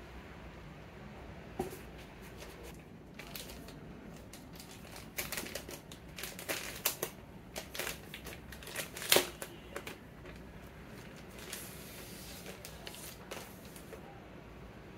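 Thin plastic wrapping crinkling and rustling as it is pulled off a tablet stand cover, in irregular bursts with one sharper crackle about nine seconds in.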